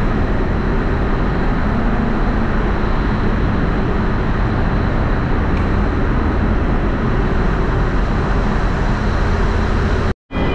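Steady, loud mechanical din of a ferry's enclosed car deck: the ship's machinery and ventilation running, a constant deep roar with a faint high whine on top.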